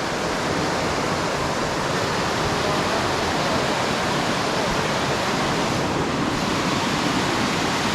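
Steady rush of flowing water from creek cascades and pools close by.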